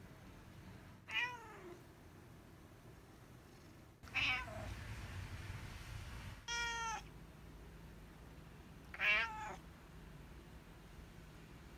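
Seal-point Siamese-type cat meowing four times, a few seconds apart. Each meow is short, and most fall in pitch.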